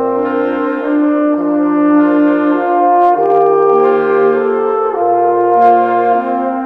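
Slow instrumental background music: sustained chords over a low bass line, the notes changing every second or so.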